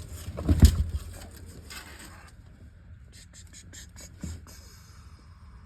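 Handling noises while measuring in a truck cab: a solid thump about half a second in, light scraping until about two seconds in, then scattered faint clicks and a smaller knock.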